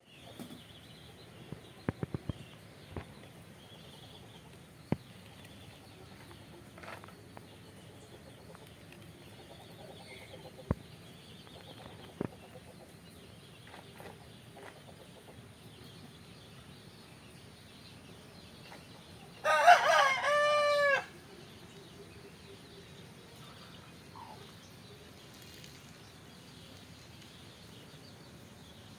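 A single loud crowing call, about a second and a half long, comes about two thirds of the way in, over a faint background. Scattered sharp ticks sound in the first half.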